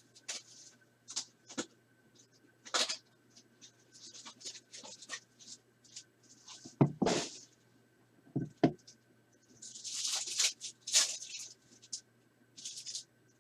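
Packs of trading cards being opened and handled: irregular crinkling, tearing and scraping of pack wrappers and card stock, with a couple of louder soft thumps about halfway through.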